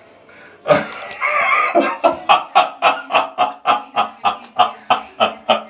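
A man laughing hard in a long, rhythmic cackle, starting about half a second in and settling into about four to five bursts a second.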